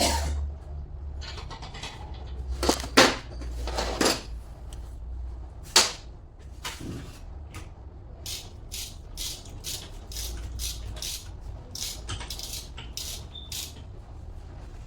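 Hand tools knocking and tapping on metal alternator parts: a few loud irregular knocks, then a run of steady taps about two to three a second, over a low hum.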